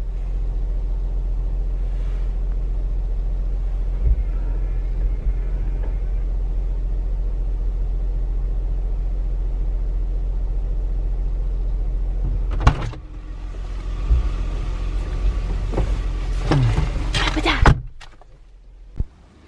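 Steady low rumble of a car running. About 13 seconds in there is a sharp knock and the rumble drops away, followed by a few more knocks and some creaking glides before it cuts off near the end.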